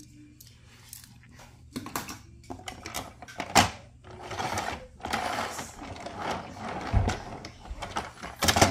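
Die-cast toy truck and trailer handled in a hard plastic tub: sharp clicks and clacks as it is set down, and a rattle as its wheels are pushed across the plastic, with a loud clack near the end.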